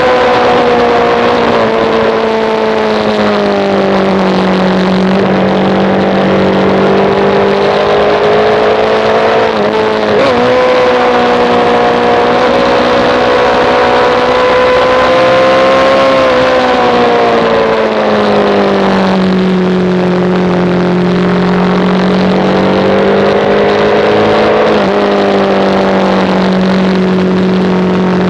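Sportbike engine at track speed, heard from on board with wind rushing over the microphone. Its pitch falls as the bike slows into corners and climbs again as it accelerates, with a quick jump in pitch about ten seconds in and another near the end.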